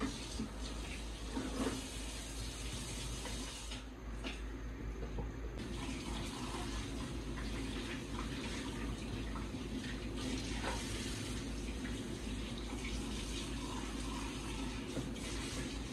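Water running steadily from a tap into a sink.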